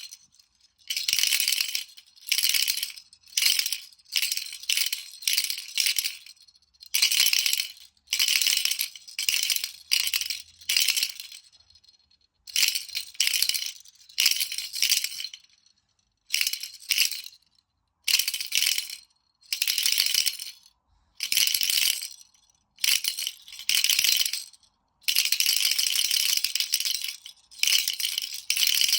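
A baby rattle shaken over and over in short bursts of about a second, with brief pauses between them and a longer stretch of steady shaking near the end.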